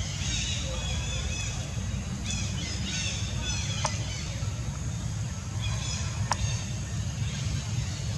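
Outdoor forest ambience: birds chirping in short bursts of high calls over a steady low rumble, with two sharp clicks about four and six seconds in.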